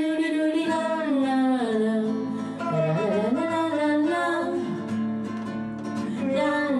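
A man singing into a microphone while playing an acoustic guitar.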